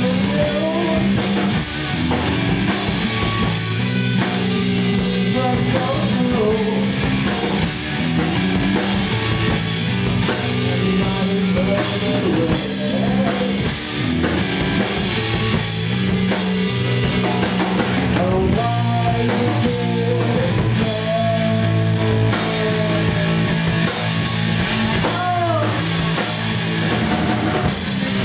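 Live rock band playing: electric guitars, bass guitar and a drum kit, loud and continuous.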